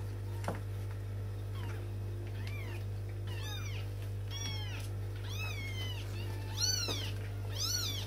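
Young Burmese kittens mewing: short, high-pitched calls that rise and fall, a few at first, then coming quicker and louder from about three seconds in. A steady low hum runs underneath.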